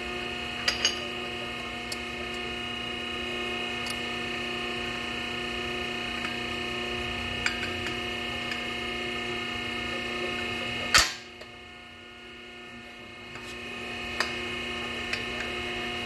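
Hydraulic pipe expander's power unit running with a steady hum, with light clicks as the exhaust pipe and collets are handled. One loud, sharp clank sounds about eleven seconds in.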